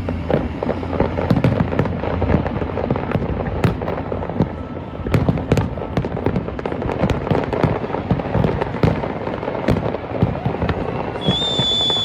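Fireworks display: a dense, irregular run of bangs and crackles from shells bursting, many overlapping. Near the end a high whistle comes in and holds, sagging slightly in pitch.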